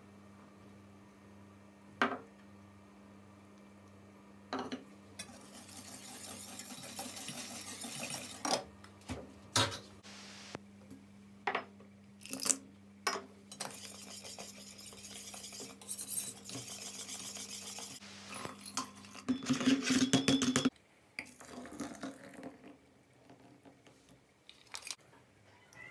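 Cooking sounds from a stainless-steel pot: a utensil stirring and scraping, with sharp clinks of metal against the pot, followed near the end by a brief loud burst of noise.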